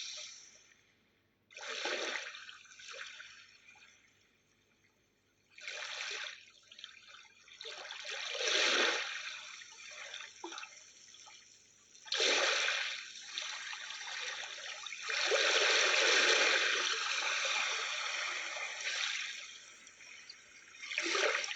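Ocean-wave recording played through a small natural-sound speaker: surf washing onto a shore in a string of swells that build and fall away a few seconds apart, with short silences between the first few waves.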